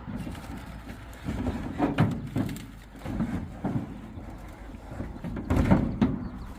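Irregular knocks and clunks over a low rumble, the loudest about two seconds in and again near the end.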